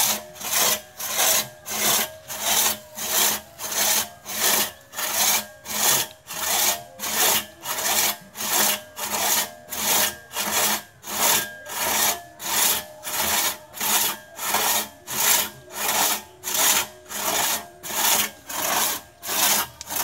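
Two-man crosscut saw rasping through a freshly felled tree trunk, pulled back and forth in a steady rhythm of about three strokes every two seconds.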